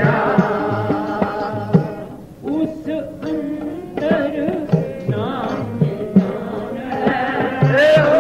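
Sikh kirtan: a man singing a gurbani hymn to harmonium drones and a steady tabla beat, with a brief drop in volume about two seconds in.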